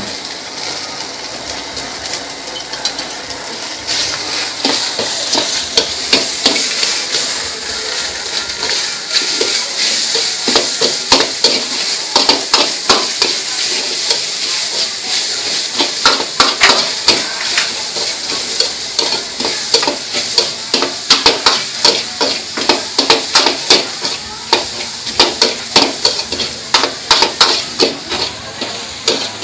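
Egg and vegetables sizzling in a hot steel wok while a metal ladle scrapes and clanks rapidly against the wok in stir-frying. The sizzle jumps louder about four seconds in, and the ladle strikes come thick and fast from then on.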